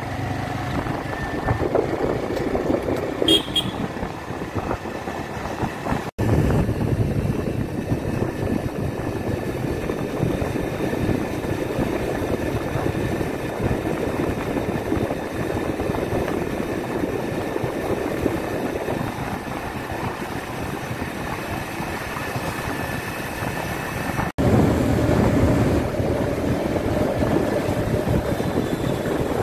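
Road and traffic noise heard from a moving two-wheeler, a steady rush of wind and engine, with a short vehicle horn toot about three seconds in. The sound breaks off for an instant twice, about six seconds in and near the end.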